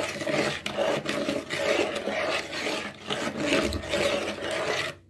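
Metal spoon stirring granulated sugar and other dry ingredients with water in a bowl, the grains rasping and scraping against the bowl in repeated strokes.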